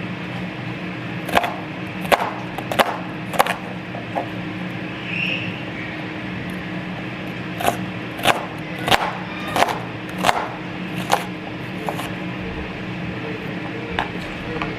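Kitchen knife chopping an onion on a cutting board: two runs of sharp, evenly spaced strikes, about four and then six, over a steady low hum.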